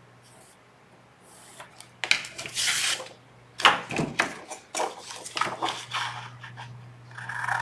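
Paper and cardstock being handled and traced on a desk: a second of quiet, then a string of rustles, taps and scrapes, over a steady low hum.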